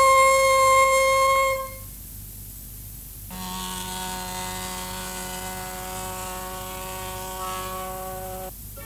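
Organ pipes on a voicing chest sounding a held chord, which cuts off about a second and a half in. A few seconds later a second steady chord of several held tones sets in and stops shortly before the end.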